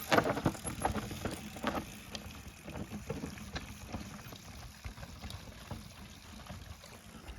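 Footsteps and trekking-pole taps on a rocky mountain path: irregular clicks and knocks over a low rumble of wind on the microphone, growing fainter toward the end.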